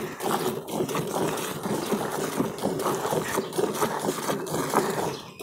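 Streams of milk squirting into a metal pail of milk as a cow is milked by hand, a quick, steady rhythm of swishing squirts.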